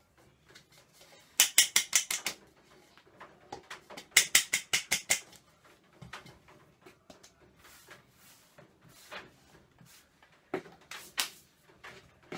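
Quick taps on a plastic blender chopper bowl to knock ground dried-krill powder out into a jar. There are two runs of about eight sharp taps each, a couple of seconds apart, then a few scattered lighter knocks.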